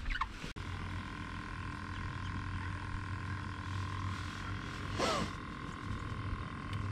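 Electric trolling motor humming steadily, a few steady tones over a low hum. A sharp click about half a second in and a short falling sound about five seconds in.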